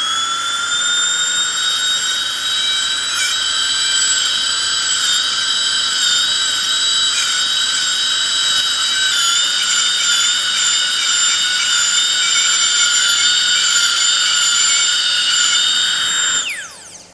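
Dental drill running with a steady, high-pitched whine whose pitch wavers slightly, then winding down and stopping near the end.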